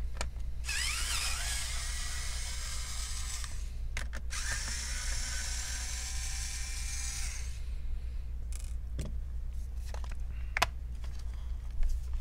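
Pen-style electric screwdriver backing out the laptop's bottom-cover screws in two runs of about three seconds each, its motor whine rising as it spins up. A few light clicks follow near the end.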